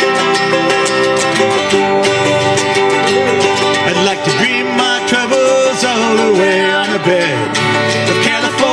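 Live acoustic country-folk band strumming guitars through an instrumental break between verses, with a wordless vocal melody gliding over the chords from about four seconds in.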